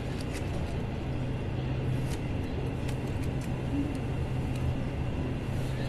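Running noise heard inside a locomotive-hauled passenger coach at speed: a steady rumble of wheels on the rails with a low hum and a few faint clicks.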